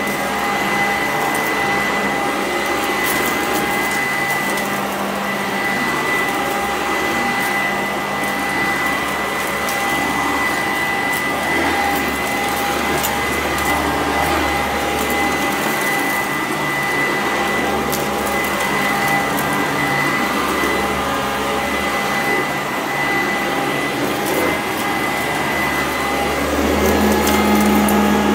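Sanitaire SC899 commercial upright vacuum running over low-pile carpet: a steady motor whine with scattered crunching clicks as it sucks up salt. It gets a little louder near the end.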